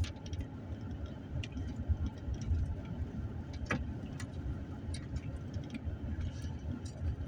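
Car interior while driving: a steady low rumble of engine and tyres, with scattered light clicks and rattles, one sharper knock a little under four seconds in.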